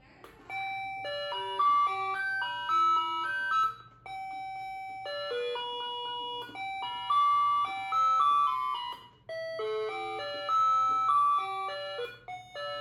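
Ajanta musical wall clock's electronic chime melody: short phrases of clean beeping notes, restarting several times in quick succession as the clock's hourly tune plays.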